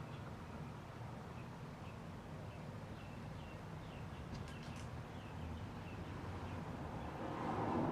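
Birds chirping, a run of short high chirps, over a steady low background hum.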